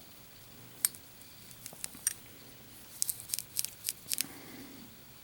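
Light metallic clicks and taps from a gold-plated Zippo lighter being handled and turned in the fingers: a few single clicks, then a quicker cluster of them in the middle.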